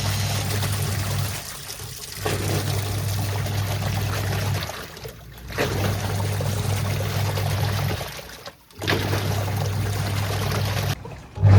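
Whirlpool semi-automatic washing machine running a wash with water in the tub: the wash motor hums in spurts of about two seconds with short pauses between, as the pulsator turns one way and then the other, and the water sloshes and splashes. The hum comes on louder near the end.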